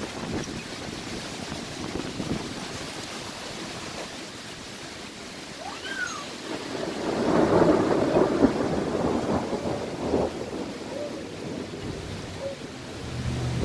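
Storm wind and rain noise, with a crackling rumble of thunder swelling about seven seconds in and fading over the next few seconds.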